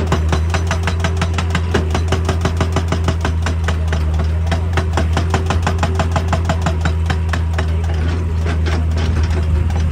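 Hydraulic breaker hammer on an excavator pounding rock in a rapid, regular stream of blows, over the steady low hum of the excavator's diesel engine.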